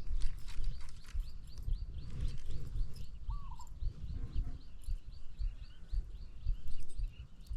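A bird chirping in a rapid, even series of short high notes, about five a second, with one short rising-then-falling call a little past three seconds in, over dull low thumps and rumble.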